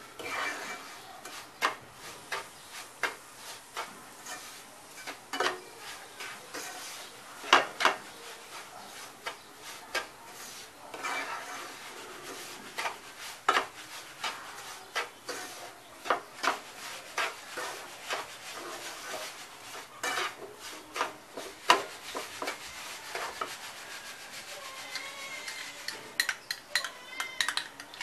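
Wooden spatula stirring and scraping a dry, crumbly mix of semolina and ground dry dates being roasted in ghee in a nonstick pan, with irregular knocks of the spatula against the pan.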